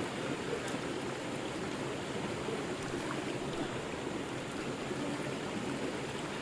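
River water flowing steadily: an even, unbroken rushing, fullest in the low-middle range, with a few faint ticks of water.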